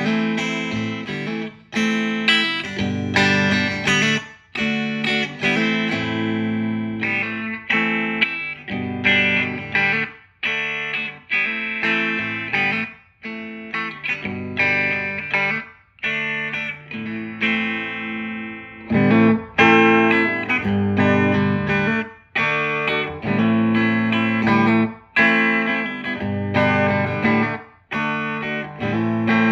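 Clean electric guitar, a Fender Stratocaster on its bridge pickup, playing a bluesy single-note lick in repeated phrases of a few seconds each, with short breaks between them.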